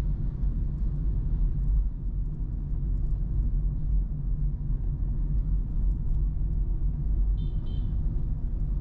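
Motorbike engine running steadily under way, with a low road and wind rumble. A short high-pitched tone comes near the end.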